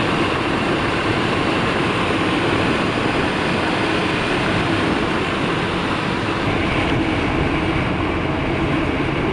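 Nissan Skyline R31 driving at a steady pace: a continuous, even drone of engine and road noise.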